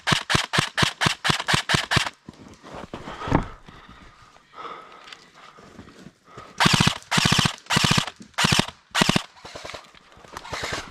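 Airsoft rifle firing quick single shots, about four a second for the first two seconds. After a short lull with one soft thump, a second string of about six louder shots comes near the end.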